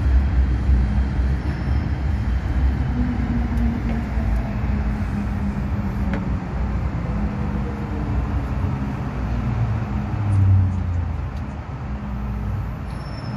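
Cabin noise of an MTR M-Train electric multiple unit under way: a steady low rumble of wheels and running gear with a low hum. A faint whine falls in pitch through the middle, and there is a single click about six seconds in.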